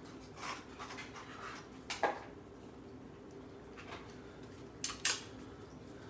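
Cats eating at metal food bowls on a tile floor: faint clinks and scrapes, with a sharp click about two seconds in and two more close together near five seconds.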